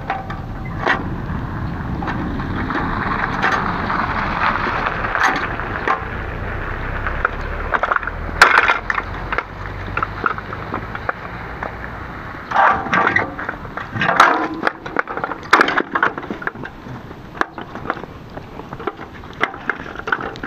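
Water running from a street hand pump into a metal milk can, building slowly for several seconds. Then the can clanks and knocks as it is lifted onto a two-wheeled hand cart, and the cart rattles as it is wheeled away.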